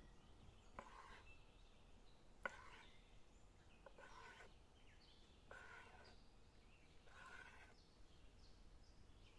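Chef's knife slicing raw chicken breast on a stone worktop: about five strokes, roughly one every second and a half, some ending in a sharp knock of the blade on the stone, the loudest about two and a half seconds in.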